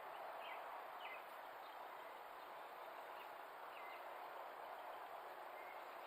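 Faint steady outdoor background hiss, with a few faint, short, high chirps scattered through it.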